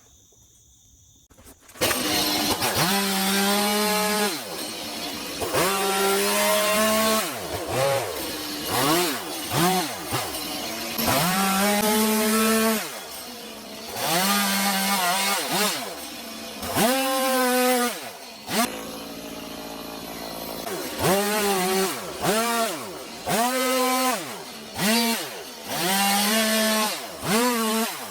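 Chainsaw cutting into a wooden log carving, starting about two seconds in and then revving up and dropping back over and over as the wood is shaped. Faint insects chirp before it starts.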